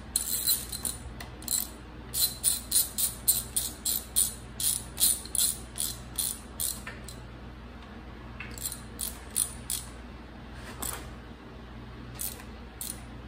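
Hand ratchet wrench clicking as connecting-rod cap bolts on a big-block Mopar crank are run down, only snugged until the cap gap closes, not torqued. Quick strokes at about three a second, thinning to a few scattered clicks after about seven seconds.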